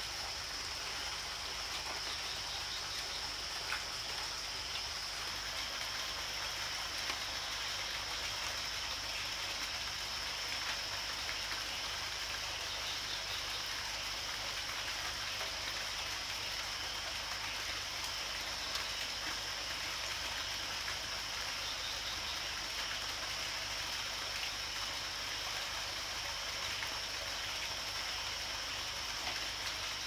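Steady night-time forest ambience: a continuous high-pitched hum over a constant hiss like rain or running water.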